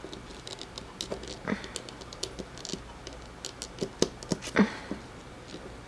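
Irregular light clicks and taps of a small red plastic pet toy being handled against a wooden surface, with a few louder knocks about four seconds in.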